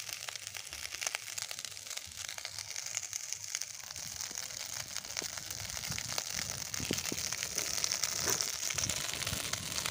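Leftover rice frying in oil in a metal kadai: a steady sizzling hiss with a metal spatula scraping and turning the rice, the scraping growing louder and busier from about six seconds in.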